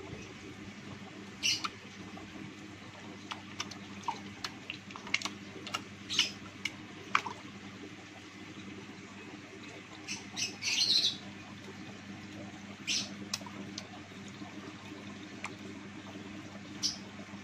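Water splashing and plopping at an aquarium's surface as batfish snatch food from a hand: several short splashes, the longest about ten seconds in, with small drips and bubble plops between them. A steady low hum runs underneath.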